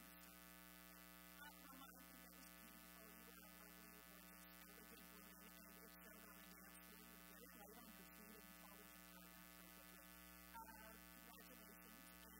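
Near silence, with a faint steady electrical mains hum.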